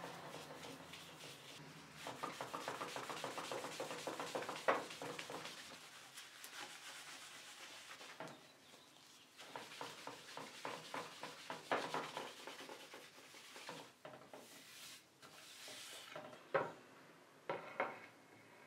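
Shellac-finished wooden cabinet door being buffed by hand with fine steel wool and paste wax: quick back-and-forth rubbing strokes starting about two seconds in, then a few knocks near the end as the door is handled.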